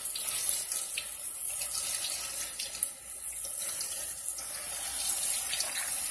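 Tap water running steadily into a kitchen sink while mung bean sprouts are rinsed in a plastic colander, with faint splashes and rustles as the wet sprouts are stirred by hand.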